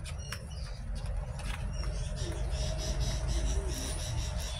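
Small cardboard retail box being opened and handled, with a few light clicks and scrapes of the flap, over a low rumble and faint high chirping in the background.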